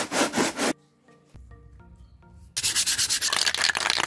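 Sandpaper scraped over cardboard in a quick run of strokes, then a longer, louder rasping stretch starting about two and a half seconds in, with background music underneath.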